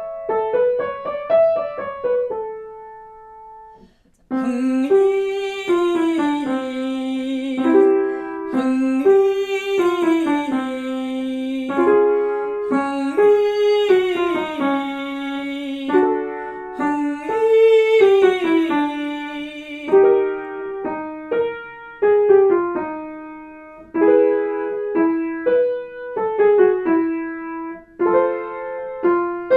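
Piano accompaniment for a vocal warmup exercise, playing short descending scale patterns in phrases about four seconds apart, with a brief break about four seconds in.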